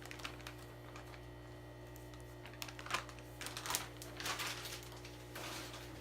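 Plastic fish-shipping bag crinkling and rustling in several short bursts as it is handled, over a steady low electrical hum.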